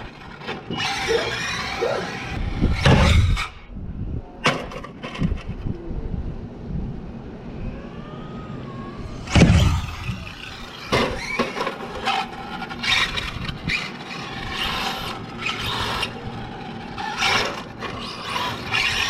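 Electric RC cars driving and jumping on dirt: tyres scrabbling and scraping, with a string of landing knocks and thuds, the loudest about nine and a half seconds in.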